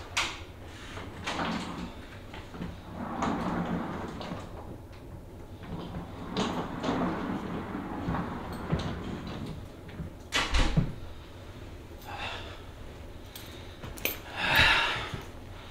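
Someone coming into a hotel room with a wheeled suitcase: door and handling knocks and rustles, with a heavy thump about ten and a half seconds in. Near the end comes a burst of clothing rustle close to the microphone.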